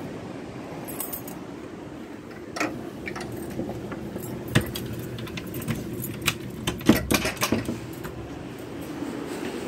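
A bunch of keys jangling, with a run of irregular sharp metallic clicks at a door, loudest in the middle, over a steady low background rush.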